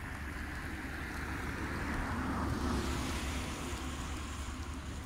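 Wind rumbling on the microphone, with a rushing hiss that swells around the middle and then eases.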